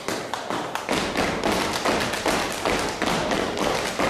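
Children's step team stepping: rhythmic stomps on the stage floor mixed with claps and body slaps, a rapid run of sharp thuds and taps.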